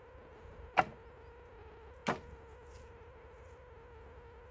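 Two sharp knocks about a second and a half apart, over a faint steady whine.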